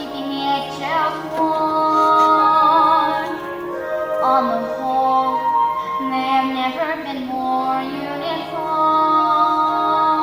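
A young female voice singing a slow melody in long held notes with vibrato, over musical accompaniment.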